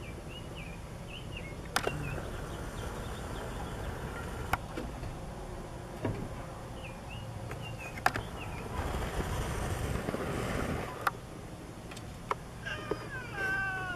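A cat's drawn-out, wavering yowl begins near the end, a cat warning off another cat that has come too close. Before it there is only a steady low background rumble and a few sharp clicks.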